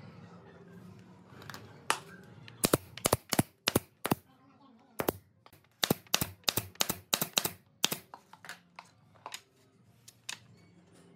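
Pneumatic nail gun firing a quick series of nails into pallet-wood boards: sharp shots in uneven bursts for about six seconds, then a few lighter clicks near the end.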